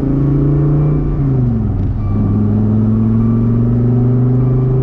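Car engine running while driving, heard from inside the cabin: a steady drone whose pitch drops about a second in as the revs fall, then holds steady.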